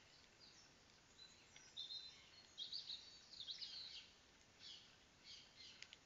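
Faint birdsong of small garden songbirds: quick high chirps and short trills, busiest in the middle few seconds, over a low steady hiss from an outdoor security camera's microphone.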